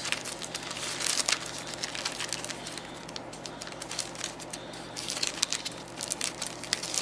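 Paper sticker sheets and clear plastic sleeves rustling and crinkling as a hand flips through a stack of them, with irregular small crackles and taps.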